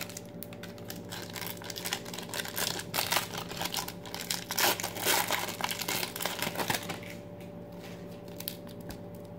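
Foil trading-card pack wrapper crinkling as it is handled and torn open, a dense crackle for about seven seconds that then stops.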